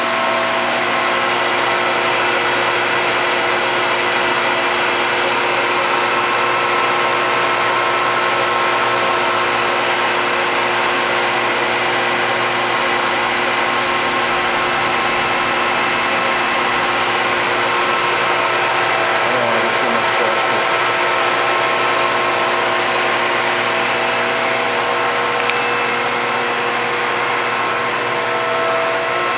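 Mollart A175 CNC twin-spindle gun drill running: a steady, loud mechanical whine of several layered tones over an even hiss, holding unchanged throughout.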